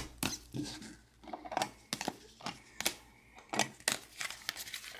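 Baseball trading cards being handled: an irregular string of light clicks, taps and slides, a few each second, as cards are flicked through and set down.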